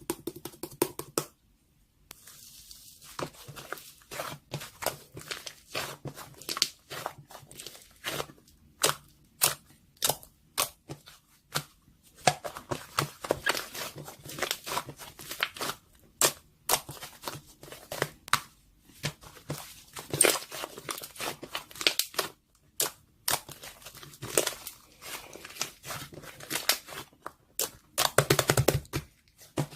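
Irregular clicks, taps and crinkling of things being handled, coming in quick clusters.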